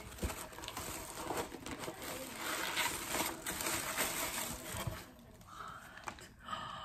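Packaging rustling and crinkling as items are rummaged for in a box, ending with a plastic-wrapped, vacuum-sealed blanket being lifted out.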